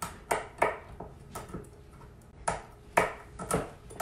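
Kitchen knife chopping a wax crayon into chunks on a wooden cutting board: a string of sharp knocks at an uneven pace, with a pause of about a second in the middle.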